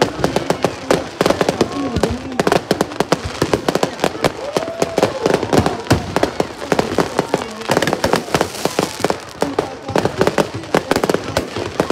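Aerial fireworks going off in rapid, near-continuous bangs and crackles, many shells bursting close together as in a display finale.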